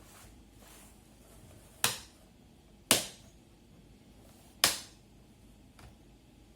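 Three sharp clicks from hands working on the laptop's plastic underside, about a second and then two seconds apart, each dying away quickly.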